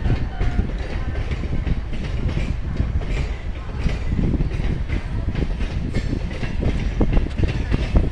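Indian Railways passenger coaches rolling past, their wheels clacking irregularly over rail joints above a steady low rumble.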